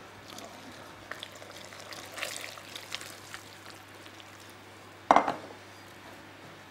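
Hot water and oil poured from a stainless steel saucepan into semolina while a wire whisk stirs and scrapes in a ceramic bowl, with light clinks. About five seconds in, one sharp knock as the saucepan is set down on the wooden worktop.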